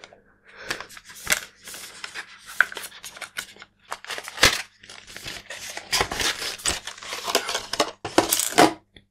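Cardboard and paper box packaging being handled: rustling, scraping and light clicks and knocks as the inserts are lifted and moved, with louder scrapes near the end.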